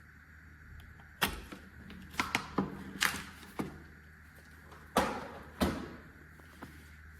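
Hard objects being handled and set down: about eight sharp knocks and clicks, irregularly spaced, over a low steady hum.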